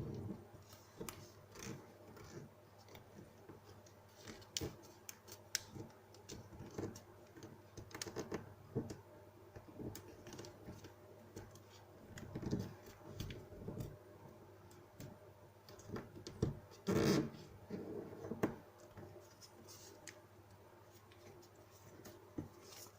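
A sheet of paper being handled, folded and creased by hand: scattered crinkles, rustles and scrapes at an uneven pace, with the loudest rustle about 17 seconds in.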